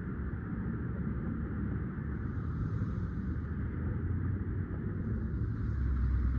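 A vehicle engine idling: a steady low rumble that grows a little louder near the end.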